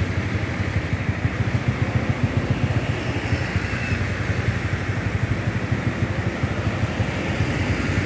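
Diesel engines of a line of large tour buses running as they roll slowly past close by, a steady low rumble with no horn sounding.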